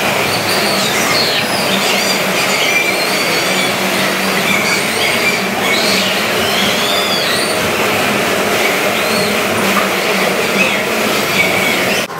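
Loud, steady din of an indoor bumper-car ride in motion, with many short, high squeals that rise and fall.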